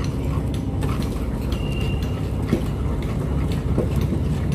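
A wooden rolling pin stirring and mashing thick rice-flour dough in an aluminium pot, with soft scrapes and knocks over a steady low rumble. The flour is being worked into the boiling gruel to keep lumps from forming.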